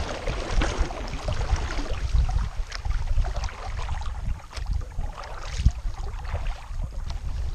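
Kayak paddle blades dipping and splashing with each stroke, with water washing along the hull. Wind rumbles steadily on the microphone underneath.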